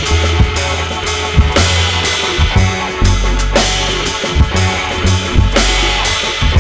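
Loud music with a steady drum-kit beat and heavy sustained bass, played through the Brewog Audio sound system's bank of twelve subwoofers.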